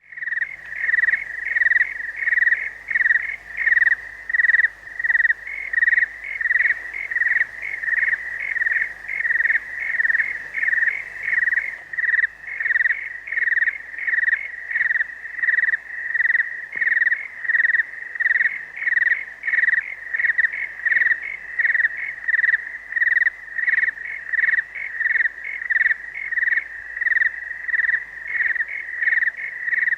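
Crickets chirping in a steady, evenly pulsing chorus, about two to three chirps a second, beginning abruptly out of silence; a night-ambience sound effect.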